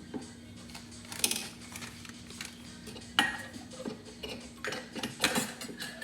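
Parts of a metal percolator (coffee basket, tube and lid) being handled, with several clinks and knocks, the loudest about a second in and about three seconds in, over a low steady hum.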